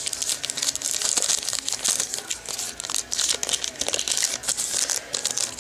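Trading card pack wrapper crinkling and rustling as it is handled and opened, a dense run of small crackles.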